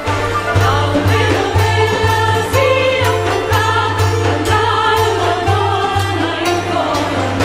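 Music with a steady beat of about two pulses a second, with voices singing over it.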